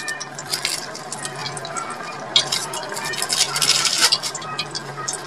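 Thick pea-and-potato chhole curry simmering in a pot, its bubbles popping in quick, irregular crackles that grow denser about three to four seconds in. A steady low hum runs underneath.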